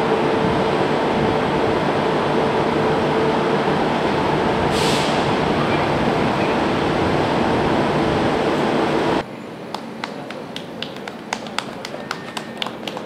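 Loud steady industrial machinery noise with a constant hum running under it, and a short hiss about five seconds in. About nine seconds in it cuts off abruptly to much quieter surroundings with scattered sharp clicks.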